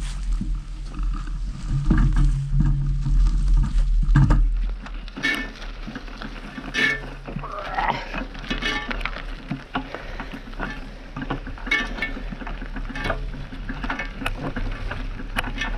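Horse being ridden along a grass trail: irregular hoof strikes and tack noise, with wind buffeting the microphone for the first four seconds.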